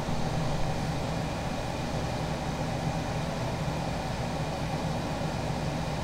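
Camper's wall-mounted window-type air conditioner running with its compressor and fan on: a steady, even hum and blowing noise.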